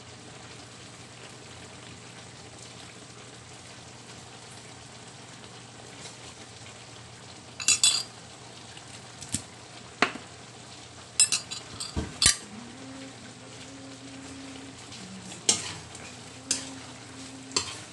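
Pork belly adobo sizzling steadily in a large aluminium wok. From about eight seconds in, sharp metal clinks and scrapes come in several clusters as metal tongs and a spatula stir the pork against the wok.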